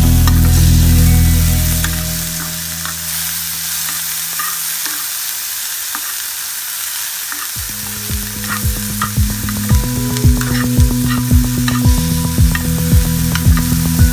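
Onions, green chillies and tomatoes sizzling in hot oil in a kadai, with a steel spoon scraping and stirring them. Background music fades out at the start and comes back about halfway through with a steady beat.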